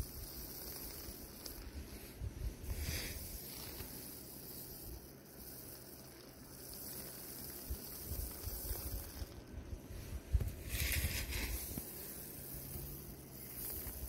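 Wind rumbling on the microphone under a steady high hiss, with two brief rustling swishes, about three seconds in and about eleven seconds in.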